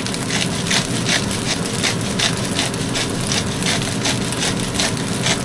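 Egg-coated rice being stir-fried in a pan, a spatula scraping and tossing it about three times a second over a steady hum.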